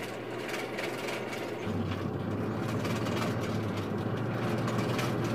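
Air blower feeding a forge's charcoal fire, running with a steady low hum and rush of air that comes in louder just under two seconds in.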